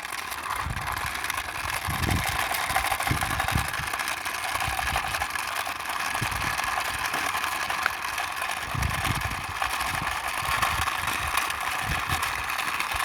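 Plastic toy army helicopter pushed along by hand, its wheels and parts rattling and clicking steadily, with irregular low knocks against the surface.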